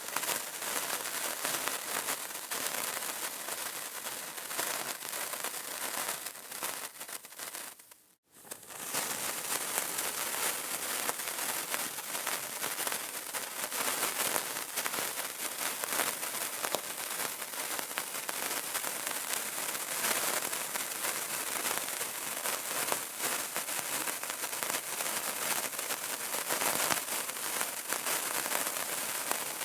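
Burning candle crackling: dense, continuous fine pops and crackles. It fades out to a moment of silence about eight seconds in, then comes straight back.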